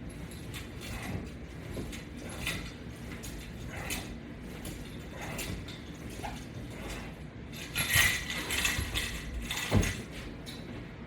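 Repeated clicks and light rattles of exercise-band hardware being worked, with a louder metallic clatter about eight seconds in and a sharp knock near ten seconds.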